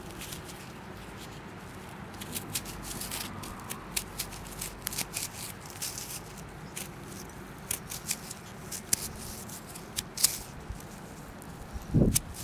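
Close handling sounds: scattered light clicks and scrapes at an uneven pace, with a louder low thump near the end.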